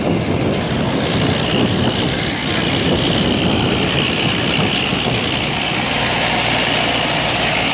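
Bus engine running steadily with road and wind noise, with no horn sounding.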